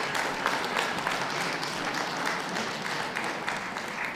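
Audience applauding, a dense patter of hand claps that begins to thin out near the end.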